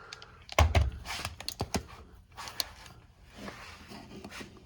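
Handling noise: a thump about half a second in, followed by scattered clicks and rustling.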